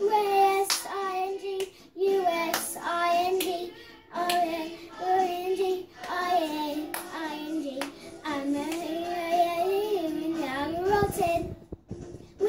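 A young girl singing on her own, her voice holding and sliding between notes, with hand claps along the way.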